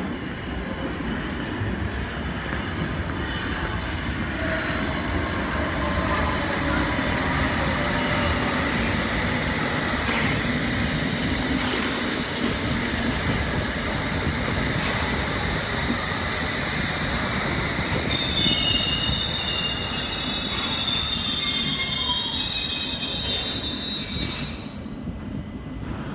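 London Underground S Stock train running into the platform and braking: a steady rumble of wheels on rail under a motor whine that falls in pitch as it slows. High brake and wheel squeals ring out over the last several seconds, then the sound drops away as the train stops.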